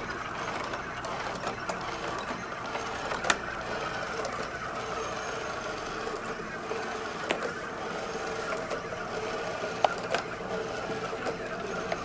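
iRobot Create robot's drive motors whirring steadily as it drives along a board, with a few sharp clicks along the way.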